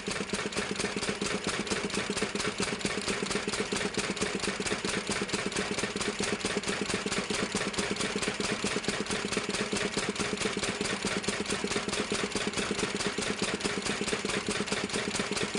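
Diesel engine driving an air compressor pump, running steadily with an even, rapid beat of firing strokes that does not change.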